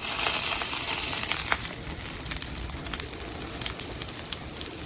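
Food sizzling in a hot ceramic nonstick pan. The sizzle jumps up suddenly at the start and is loudest for about the first second and a half, then settles to a steadier sizzle with scattered crackles.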